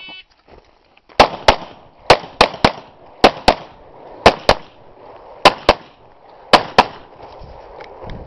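A shot-timer beep at the start, then a Glock 17 9 mm pistol fires thirteen shots, mostly as quick pairs about a quarter second apart, over roughly six seconds.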